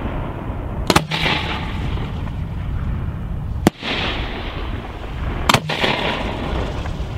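Aerial firework shells bursting at a fireworks display: sharp bangs about a second in, near four seconds and around five and a half seconds, over a continuous noisy rumble.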